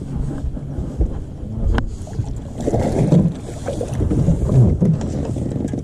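Wind buffeting and rustling handling noise on a body-worn camera microphone aboard a bass boat, over a steady low hum, with a single sharp click about two seconds in.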